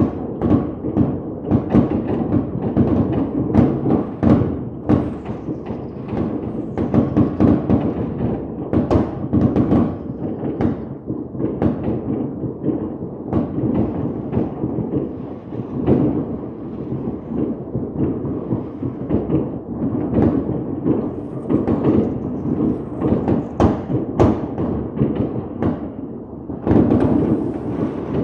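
Dense fireworks barrage: a continuous rumble of booms with many sharp bangs and crackles, briefly easing off just before the end.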